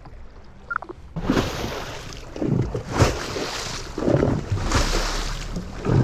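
Wind and water noise on a boat on open water, starting suddenly about a second in and surging every second or so.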